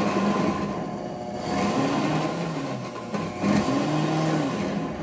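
WantJoin commercial blender running on its smoothie program under its soundproof shield, blending a thick hummus mix. The motor's pitch repeatedly swells up and drops back as the program varies the speed.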